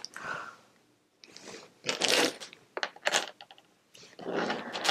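Small metal binder rings clinking together and a thin plastic bag crinkling as the rings are pulled out and handled, in a string of short, irregular bursts.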